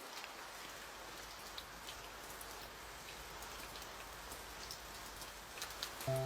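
Steady light rain falling, with scattered drops ticking on a surface. A soft melody comes in just at the end.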